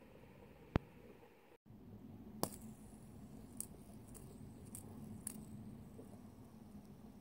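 Light plastic clicks and taps from a fidget spinner being handled and spun in the hands: one sharp click about a second in, then a handful of lighter clicks spread over the next few seconds. The sound cuts out briefly just before the clicks begin.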